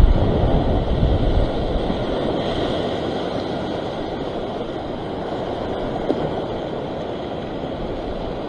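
Ocean surf washing and surging over a rock ledge as a steady rushing noise, with wind buffeting the microphone in the first second or so.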